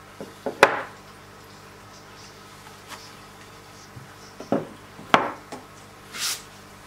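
Sharpening stones on their handles being handled and set down on a table: a few sharp clacks about half a second in, another cluster of clacks around five seconds, then a short hissing scrape near the end.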